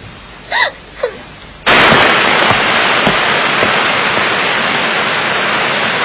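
A short vocal sound, then a loud, steady rushing hiss that starts abruptly just under two seconds in and holds evenly.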